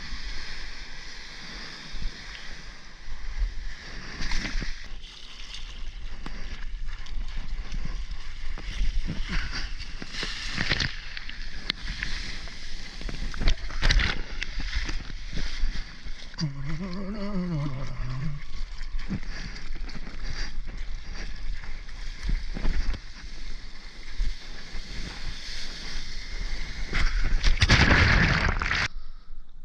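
Seawater rushing and splashing around a soft-top surfboard and a GoPro held close in the surf, with sharp splashes throughout. A short wavering tone sounds about halfway through. Near the end a loud surge of churning water cuts off suddenly as the camera goes under.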